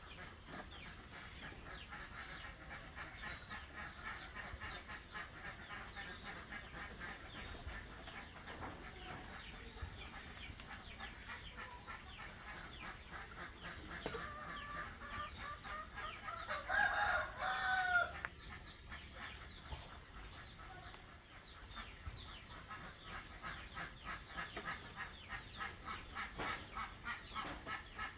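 A flock of village chickens clucking continuously, with one louder drawn-out call, likely a rooster's crow, about seventeen seconds in.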